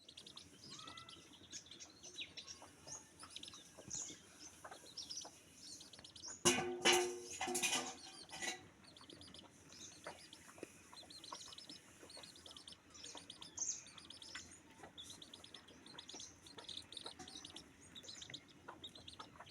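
Many small birds chirping quickly and continuously. A loud call from a chicken starts about six and a half seconds in and lasts about two seconds.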